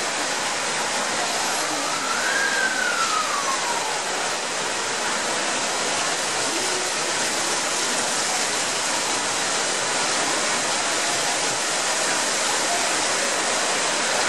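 Heavy rain pouring down in a steady rush, with water gushing from overflowing drain pipes. A faint tone rises and falls once about two seconds in.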